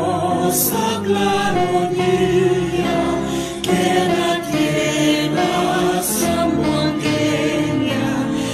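Background music: a choir singing a slow hymn in long held notes over accompaniment.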